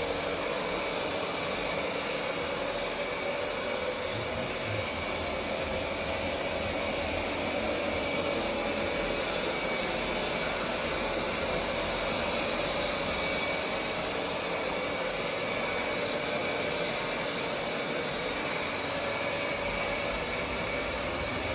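Roborock S8 robot vacuum running: a steady suction whir with a constant high whine over it.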